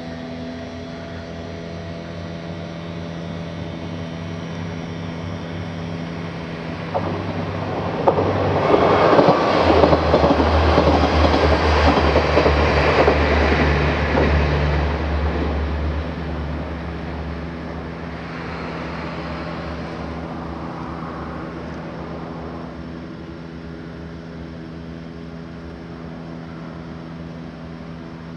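Motor and propeller drone of a large radio-controlled wing-in-ground-effect model craft: a steady hum that grows much louder, with a rush of noise, from about a quarter of the way in, then fades back down over the second half.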